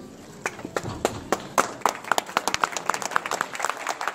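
A small group applauding by clapping hands. It starts with a few separate claps about half a second in and thickens into steady applause.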